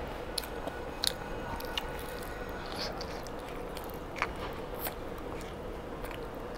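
A child biting and chewing meat off a chicken wing, with irregular wet smacks and clicks of the mouth, over a steady faint hum.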